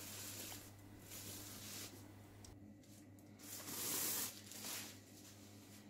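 Rustling of a thin white protective bag as a projector is slid out of it, in several bursts, the loudest about four seconds in.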